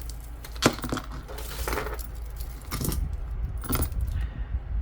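Loose metal jewelry clinking and jangling as pieces are picked through by hand, with several sharp clinks.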